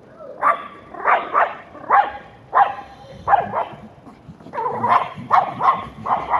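A dog barking over and over in short yaps, about two a second, with a brief lull near the middle.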